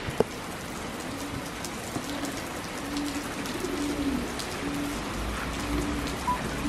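Steady rain falling on a wet street, with a pigeon cooing repeatedly in short low notes. A single sharp click sounds just after the start.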